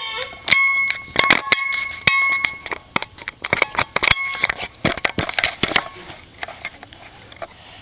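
Close clicks and knocks of a baby handling a toy against the microphone. During the first four seconds a steady electronic tone sounds on and off several times, holding one pitch.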